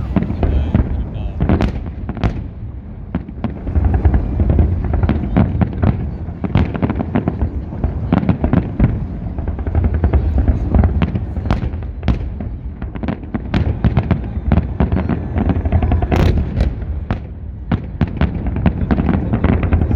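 Fireworks salute going off: a dense run of sharp cracks and bangs, several a second, over a continuous low rumble.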